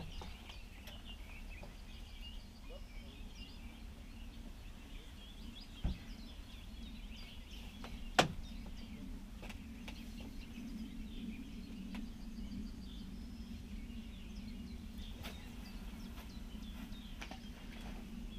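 Songbirds chirping over a steady low background hum. There is a faint knock about six seconds in and one loud, sharp snap a little after eight seconds, as the fishing rod is handled and cast.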